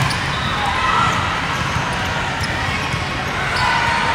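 Busy volleyball hall din: a steady wash of crowd chatter and court noise with scattered thumps of volleyballs being hit and bounced.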